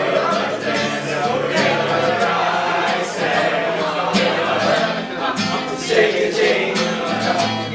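Background music: a song with plucked guitar and singing voices, playing steadily.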